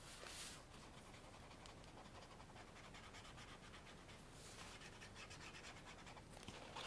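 Near silence: room tone with a few faint, soft swishes, about half a second in and again about four and a half seconds in.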